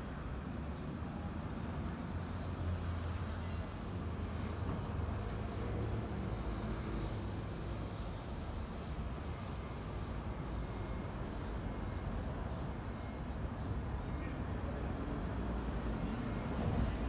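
Steady outdoor traffic noise, a continuous low rumble, with a thin high squeal about a second and a half long near the end.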